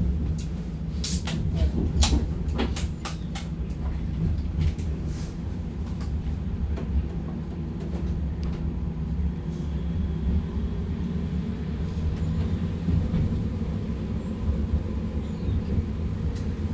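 Bombardier M5000 Metrolink tram running between stops, heard from inside the car: a steady low rumble of wheels on rail and running gear. A run of sharp clicks comes in the first three seconds, and a faint whine rises slightly in pitch in the second half.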